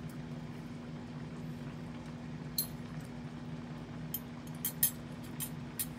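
Someone eating quietly with a spoon: a few short, sharp clicks and clinks, one about halfway through and several close together near the end, over a steady low hum.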